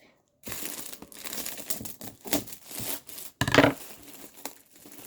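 Gift packaging being crinkled and torn by hand, an irregular rustling with small clicks and one louder rustle about three and a half seconds in.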